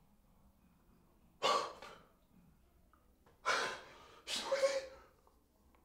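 A man's loud, breathy gasps: three sharp breaths, the last drawn out with a little voice in it, like a shocked 'ah'.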